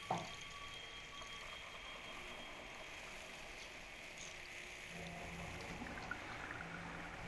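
A single sharp metallic clank about a tenth of a second in as the lid of a metal crate is handled, with a brief ringing tail. After it comes steady hiss with faint rattling as metal boxes and drawers are handled, and a low hum joins about five seconds in.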